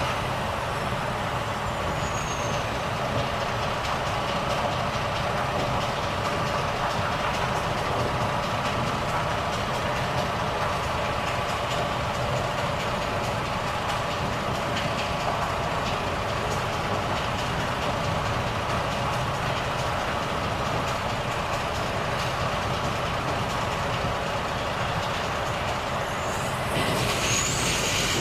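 Volvo FH truck's diesel engine running steadily with its even hum and rumble. About 26 seconds in, a hiss comes in and the sound gets a little louder.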